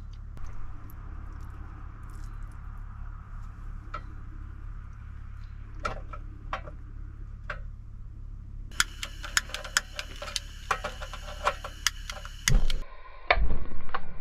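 Metal kitchen utensils clicking and tapping against a cast-iron skillet and a small metal pot. The clicks are scattered at first and come thick and ringing in the second half. A few loud knocks come near the end, over a low steady hum.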